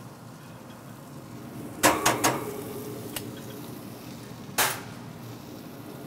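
Metal BBQ tongs striking the steel cooking grate of a pellet grill: three quick clanks about two seconds in, each with a short metallic ring, then a single clank as the tongs are set down on the grate.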